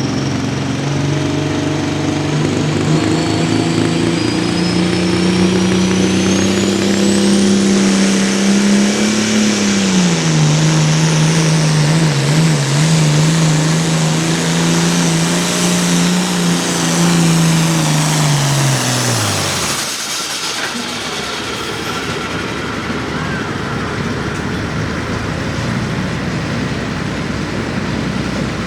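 International Harvester 1066 hot farm tractor's diesel engine running hard under full load while pulling the sled, its note climbing over the first several seconds with a high whistle rising alongside. The pitch steps down about a third of the way in, holds, then falls away and dies about two thirds through as the throttle comes off at the end of the pull; a steady rushing noise remains after.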